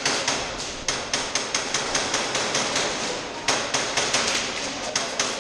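Rapid airsoft gunfire: a dense run of sharp cracks, about four to six a second, over a steady hiss.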